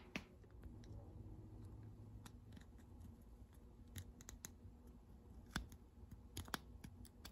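Faint, scattered small metal clicks and scrapes of a screwdriver tip working in the slot of a nut, tightening it onto the pivot bolt of a Suntour Cyclone Mark II bicycle rear derailleur.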